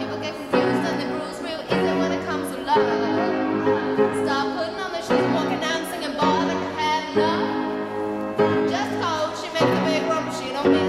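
Music: sustained chords that change about once a second, with a high, sliding, wavering voice-like melody over them.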